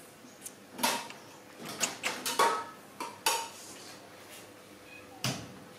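Scattered light knocks and clatters of hard household objects, about half a dozen, a few with a brief ringing.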